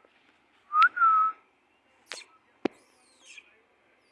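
A man whistles to call puppies: a short rising whistle that levels off into a held note, about a second in. Two sharp clicks follow, then faint high, falling chirps.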